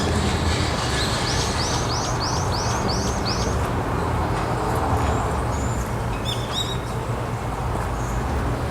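A bird calls over a steady low rumble. It gives a quick run of six high, arched notes, about three a second, starting a second in, then a shorter burst of high notes in the second half.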